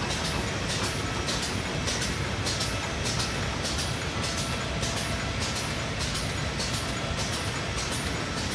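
Three-side-sealing stand-up zipper bag making machine running, a steady mechanical noise with a short sharp stroke repeating evenly about twice a second as it cycles through each bag.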